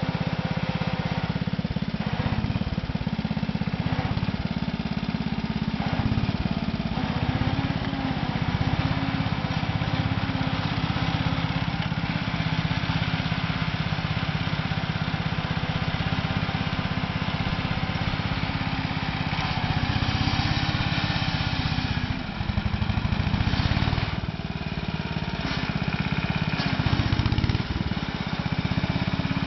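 Mead Speedcat mini crawler dozer's 9 hp Wisconsin single-cylinder air-cooled engine running steadily as the machine drives through loose tilled soil. The note dips briefly about two-thirds of the way in, and again near the end.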